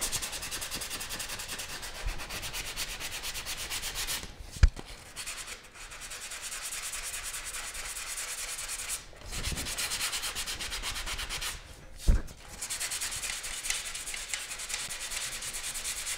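Hand sanding of cured polyester primer (Featherfill) on a car body panel with sandpaper, in quick back-and-forth strokes: a steady dry scratching that pauses briefly a few times. Two sharp knocks come about four and a half seconds in and again about twelve seconds in.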